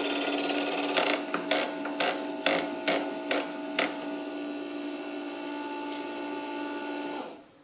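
Small DC motor scavenged from a dot-matrix printer running a 3D-printed lathe through an O-ring drive, a steady whine while the cutting tool turns down a PLA pulley. A run of sharp ticks comes about twice a second in the first half. The motor cuts off suddenly near the end.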